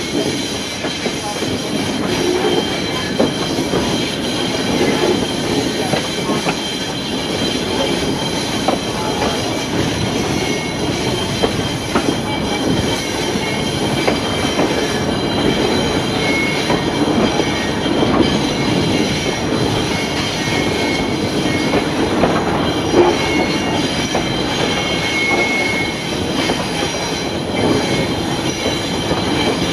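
Rumble of a heritage broad-gauge passenger train running along the line, heard from on board: steady wheel-and-rail running noise with brief faint high squeals now and then.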